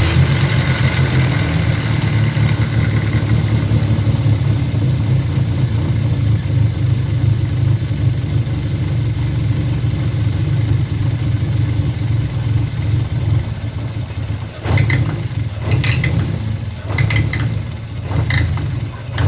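Car engine running at idle, steady, with a rattling noise that sounds like valves or timing chain. The mechanic traces it to oil starvation from silicone sealant pieces clogging the oil pickup strainer. Several sharp clicks near the end.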